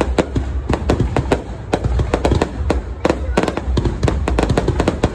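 Fireworks display: a rapid, irregular run of sharp cracks and bangs, several a second, over a continuous low rumble.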